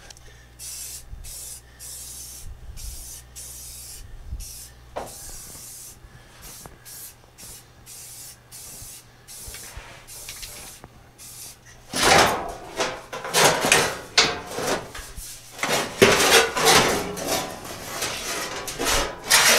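Aerosol spray-paint can hissing in a series of short bursts, spraying yellow paint along the edges of a new steel floor pan laid in the car floor to mark its outline. From about twelve seconds in, the sheet-steel floor pan is lifted out, rattling and scraping louder and irregularly.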